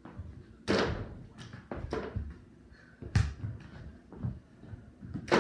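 A series of sharp thumps and knocks indoors, the loudest about a second in, another about three seconds in and one near the end, with smaller knocks between.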